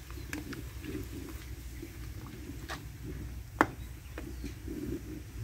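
Metal ladle and tongs clinking and scraping against a steaming wok as food is stirred: a few scattered clinks, the sharpest about three and a half seconds in, over a low steady rumble.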